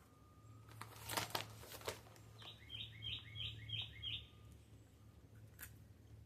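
A few brief crackles, then a bird chirping five times in a quick, even series of short notes, each dropping in pitch.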